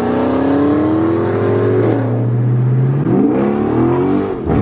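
V8 Dodge Charger engine accelerating hard, its pitch climbing and then dropping back at a gear shift about three seconds in and again near the end, over a steady lower engine drone.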